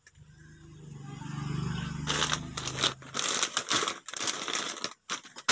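Plastic snack packets crinkling and rustling as a hand rummages through a cardboard box full of them, starting about two seconds in with short pauses. Before that, a low hum swells and fades.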